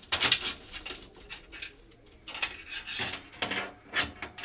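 Power supply cables and their plastic connectors being handled and moved about a computer case: irregular rustling with light clicks and knocks.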